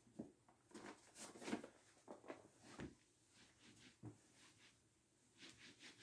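Faint pen-on-paper writing: scattered light taps and scratches, then a quick run of short strokes, about four or five a second, near the end.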